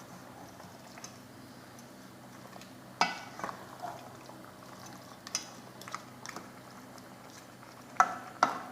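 A spoon stirring chicken curry in a pot, clinking against the pot a handful of times, over a steady low simmer.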